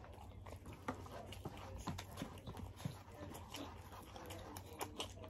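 Eating sounds: chewing, with many soft, irregular clicks and taps from mouths and utensils.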